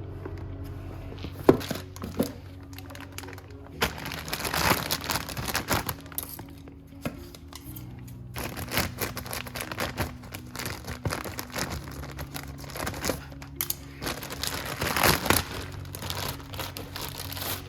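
Crinkling, rustling and sharp clicks of hands working with parts and packaging, irregular throughout, with a loud click near the start, over soft background music.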